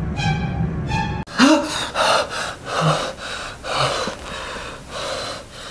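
A tense, pulsing music cue cuts off abruptly about a second in. A man then gasps sharply, waking with a start from a nightmare, and pants heavily in quick, ragged breaths.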